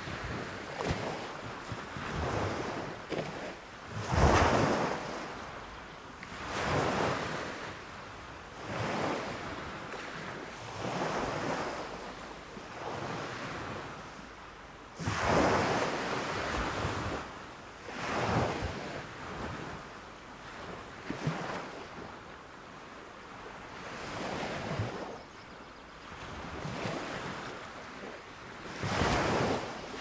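Small waves breaking on a sandy beach and washing up the shore as hissing foam, in surges that come every two seconds or so; the biggest crashes come about four seconds in, around fifteen seconds in and near the end.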